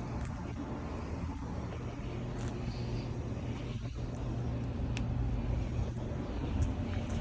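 Outdoor central air conditioner condensing unit running, a steady low compressor hum under the whoosh of its condenser fan.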